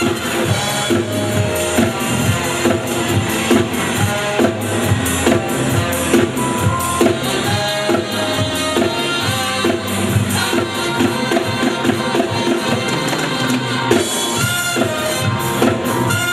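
Upbeat band music with a fast steady drum beat and percussion, playing without a break.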